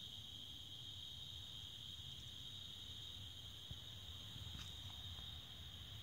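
Steady, high-pitched trilling of a night insect chorus, faint and unbroken, with a single soft tick about midway.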